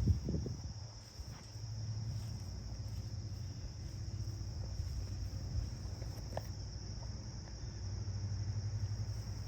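Steady high-pitched insect chorus, typical of crickets, over a low steady rumble.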